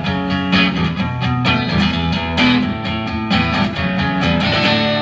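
Silvertone electric guitar strummed through an amplifier, chords played in a steady rhythm.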